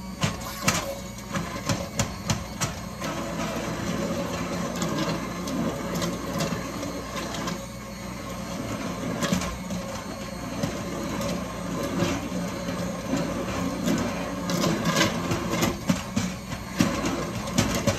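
Handheld immersion blender running steadily, pureeing fresh strawberries for jam, with scattered knocks and clicks as it is worked through the fruit in the bowl.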